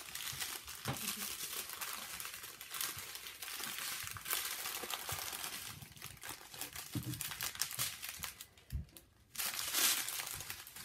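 Small plastic bags of diamond-painting drills crinkling and rustling as they are handled, with a short lull near the end.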